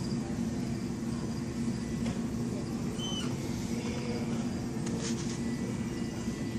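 Steady low hum of a store's room tone, with a brief faint chirp about three seconds in and a few light clicks about five seconds in.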